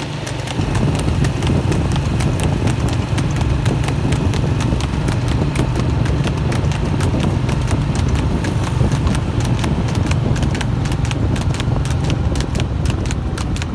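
A harness horse trotting fast on asphalt while pulling a two-wheeled racing cart, its hooves clip-clopping in a rapid, even rhythm. A steady low rumble runs underneath.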